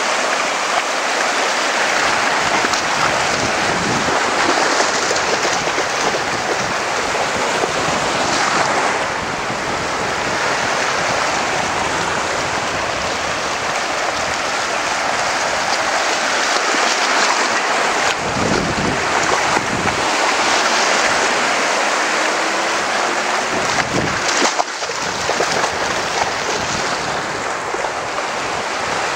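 Small waves breaking and washing over a shallow sandy shore in a steady rush of surf. Wind buffets the microphone a few times, most around two-thirds of the way through.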